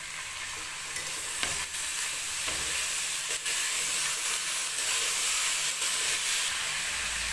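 Chopped onion, tomato, ginger and green chillies sizzling in hot oil in a metal kadhai while a metal spatula stirs them, now and then scraping and clicking against the pan. The sizzle grows louder over the first second or two.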